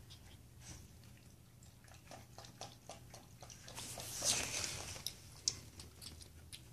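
Light, scattered clicking and scuffling from Lhasa Apso puppies moving about and playing on a hardwood floor. There is a brief rustling burst about four seconds in.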